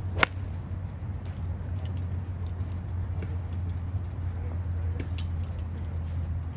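A single sharp crack about a quarter second in, a golf club striking a ball, over a steady low hum. Fainter clicks follow about a second in and near five seconds.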